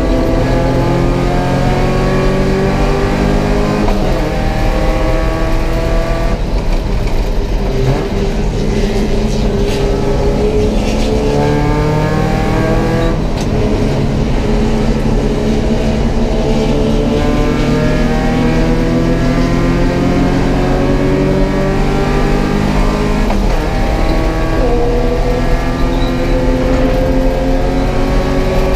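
Porsche 944 Cup race car's four-cylinder engine heard from inside the cockpit at racing speed, its pitch climbing repeatedly and dropping back at several points as the car accelerates, shifts and slows for corners.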